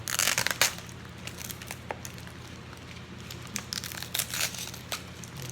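Packaging being handled and crinkled: a loud crinkling burst right at the start, then scattered short rustles about four seconds in.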